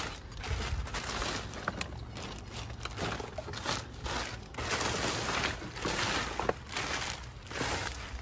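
Thin plastic trash bag rustling and crinkling in bursts as gloved hands pull it open and push it aside, with a few light clicks of the packed items shifting.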